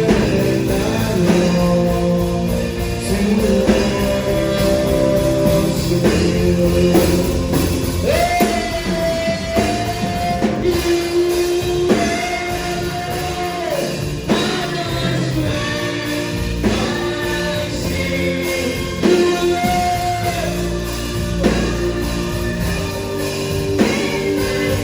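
Slow gospel worship music from a band, with a voice holding long notes without clear words over the accompaniment.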